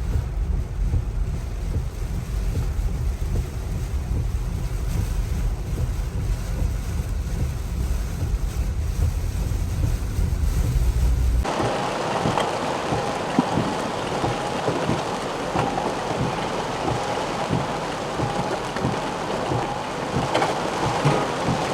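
Strong wind buffeting the microphone with a heavy low rumble; about halfway through it cuts abruptly to a steady rushing hiss of water.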